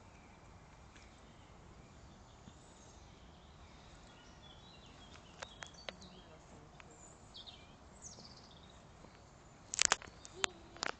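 Quiet outdoor garden ambience with faint, scattered bird chirps. A few sharp clicks near the end are the loudest sounds.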